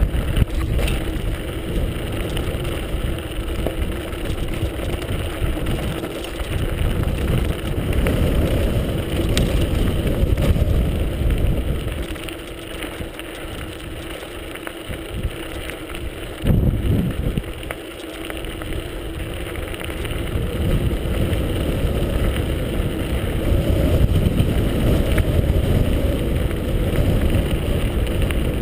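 Wind rumbling on a GoPro HD camera's microphone, with the tyres of a mountain bike rolling over a gravel track as it rides downhill. It eases off for several seconds about halfway through, with a short loud gust in the middle of that lull.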